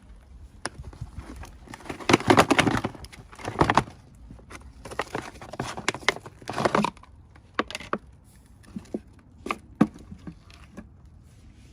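Packaging being handled and opened: two loud stretches of crackling and crinkling, then scattered light clicks and taps.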